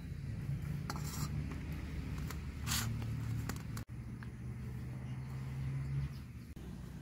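Hand mixing rice and curry on a steel plate, with short scraping and rustling noises about one and three seconds in, over a low steady hum.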